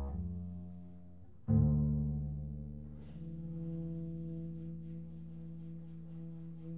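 Double bass played live in a free-improvised duet, giving low sustained notes. A loud note about a second and a half in rings out and fades, and a steady held note follows.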